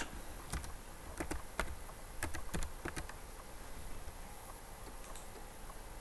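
Keystrokes on a computer keyboard as a short word is typed: a handful of separate clicks spread over the first three seconds, then quiet room noise.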